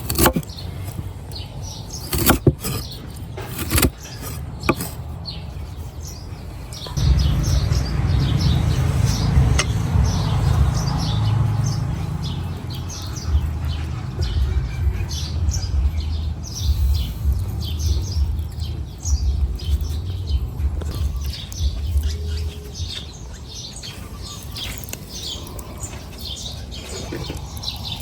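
Birds chirping rapidly and repeatedly, with a few sharp clicks in the first five seconds and a loud low rumble from about seven seconds in that fades out after about twenty seconds.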